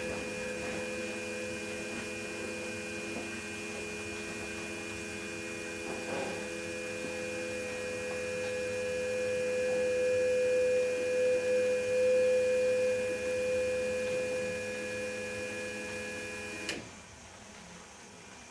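Fuel injector test bench running a flow test, its injectors spraying into graduated cylinders: a steady hum with a high whine, a little louder midway, that cuts off suddenly near the end when the bench stops.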